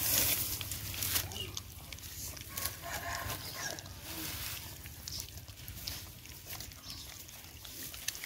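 Several puppies eating soft food from a plate and bowl: a busy, irregular run of smacking, lapping and chewing clicks.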